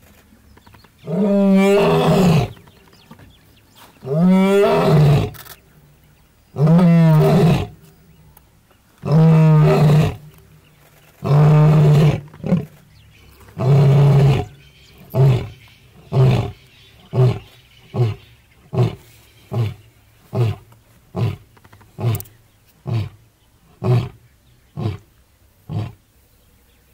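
Male lion roaring: a full roaring bout of about six long, deep roars a couple of seconds apart, trailing off into a run of short grunting roars, about one a second, that grow fainter.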